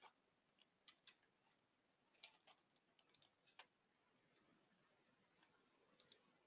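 Near silence, broken by about ten faint, irregular clicks.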